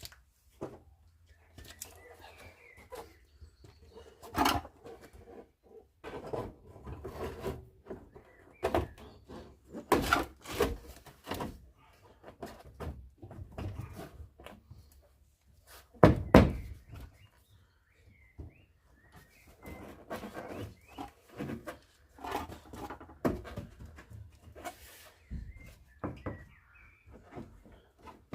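Irregular knocks, clunks and scrapes of a Trabant 601 front wing being handled and offered up against the car's body for a test fit, with one heavier thud about sixteen seconds in.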